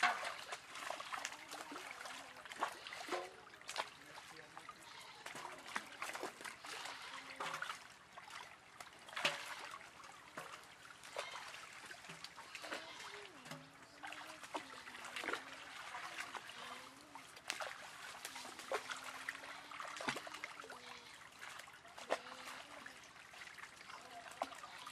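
Water trickling and lots of small, irregular splashes from a net crowded with live fish thrashing in shallow water as they are scooped out by hand. Faint voices in the background.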